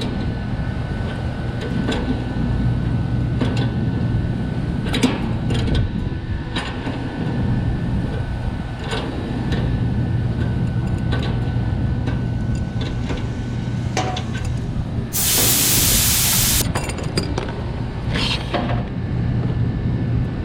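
Steady low hum of running refrigeration equipment, with scattered metal clicks of hand tools on the fittings. About fifteen seconds in, a sharp hiss lasting about a second and a half: refrigerant at slight positive pressure escaping from the low pressure switch fitting as it is opened.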